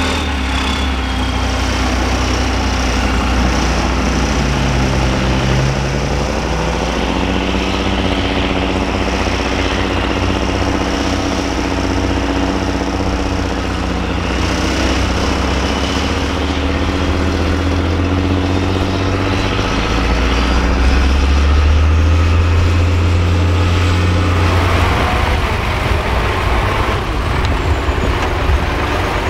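Off-road trial truck's diesel engine working hard under load while crawling through deep mud, its pitch rising and falling as the throttle opens and eases off. It is loudest around two-thirds of the way through. Near the end the engine note changes as a second trial truck's diesel is heard.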